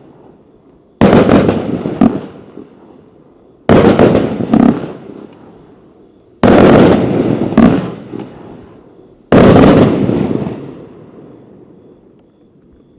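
Riakeo Weapon X 1.3G firework cake with 25/30mm tubes firing its last shots: four loud bursts about three seconds apart, each with a smaller pop after it and a long crackling tail that dies away.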